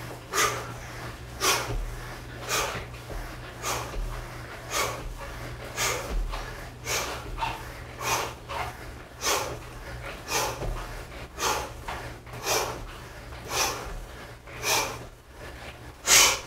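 A man's short, forceful exhalations, one with each explosive resistance-band squat, about one a second, around fifteen in all. The last, near the end, is the loudest.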